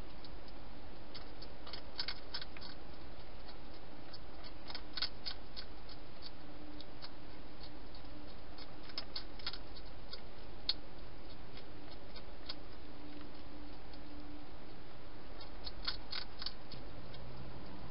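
A European hedgehog crunching dry food inside a plastic feeding box: sharp, clicky chewing comes in short clusters every few seconds, over a steady hiss.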